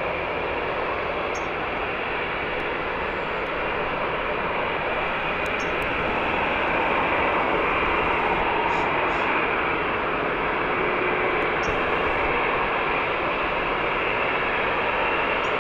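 Airbus A350-900 jet airliner's Rolls-Royce Trent XWB engines running, a steady jet noise that swells slightly about six seconds in.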